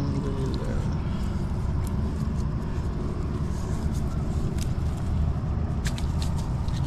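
Steady low outdoor rumble, with a few light clicks near the end as fish are handled in a cast net lined with chain sinkers.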